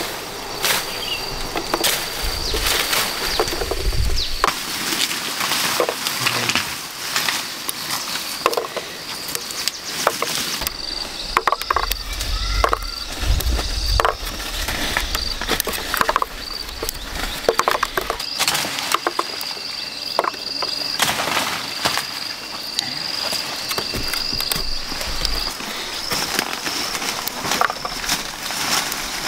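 Insects buzzing steadily at one high pitch, with frequent rustles, clicks and knocks close by and a few brief low rumbles.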